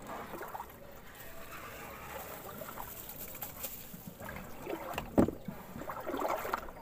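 Water sloshing as someone wades through shallow floodwater in a field, with one sharp knock about five seconds in.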